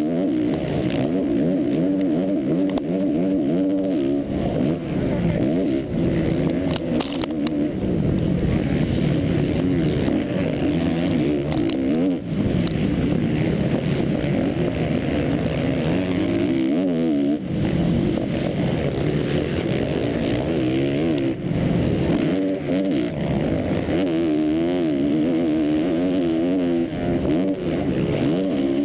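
A motocross bike's engine, close up from the bike itself, revving hard under race load: its pitch climbs and drops again and again as the rider accelerates, shifts and backs off through the gears.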